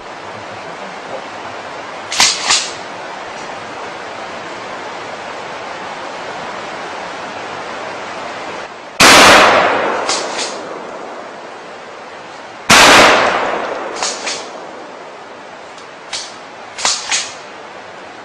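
Two loud gunshots about four seconds apart, each with a long echoing decay. Pairs of quieter sharp clicks come before, between and after the shots.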